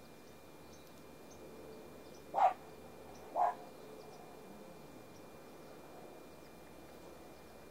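A dog barking twice, two short barks about a second apart.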